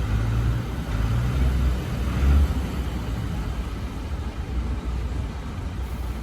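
Heavy diesel earthmoving machinery running with a low, steady engine drone that swells briefly about two seconds in.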